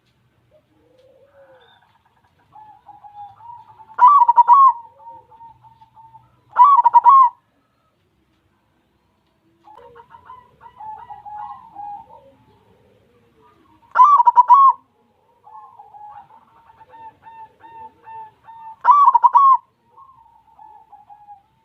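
White zebra dove (perkutut) singing its cooing song: four loud phrases of quick rolling coos, with softer runs of coos between them.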